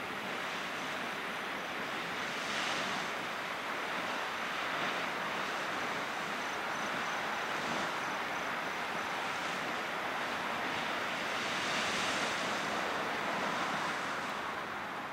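Flood Geyser erupting: boiling water splashing and surging from the vent under venting steam, a steady rushing hiss. It swells louder a few seconds in and again near the end.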